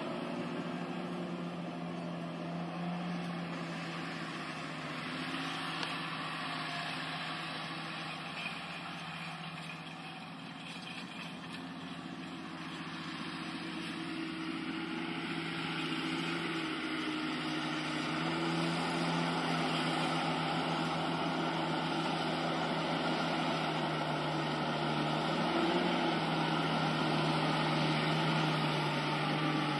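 Large John Deere tractor's diesel engine running steadily as it pulls a disc harrow, growing louder through the second half as the tractor comes closer.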